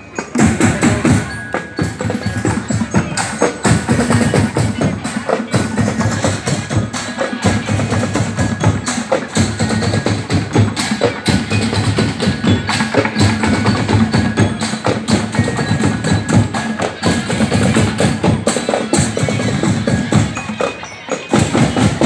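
Loud percussion music with drums, dry wooden clicks and bell-like mallet tones, going on steadily in a dense rhythm.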